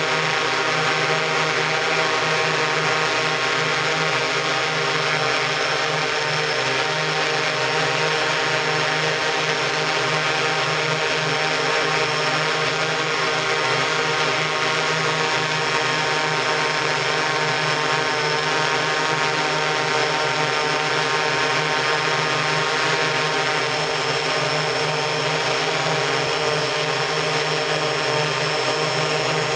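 Steady drone of a multirotor octocopter's electric motors and propellers in flight, heard from on board the aircraft: a dense whine of many even tones that holds the same pitch and level throughout.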